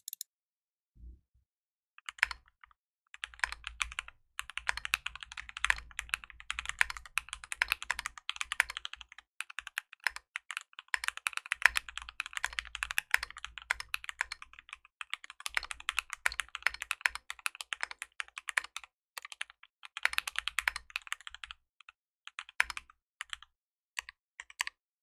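Keychron Q10 gasket-mounted mechanical keyboard with stock Gateron G Pro Brown tactile switches being typed on fast in long runs of keystrokes, with short pauses between runs. A few single keystrokes near the start and again near the end.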